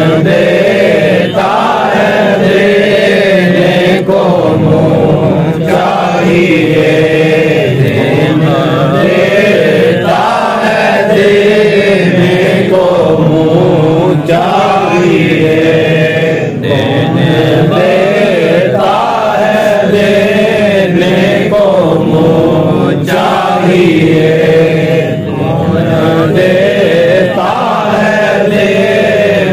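Male voice chanting a slow, melodic devotional recitation, continuous with only brief pauses for breath.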